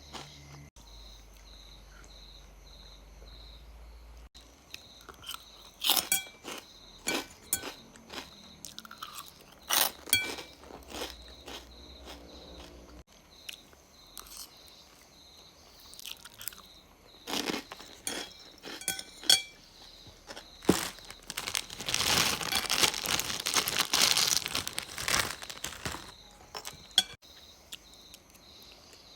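A person biting and chewing crunchy food in sharp, irregular crunches, with a longer run of dense crunching about two-thirds of the way through.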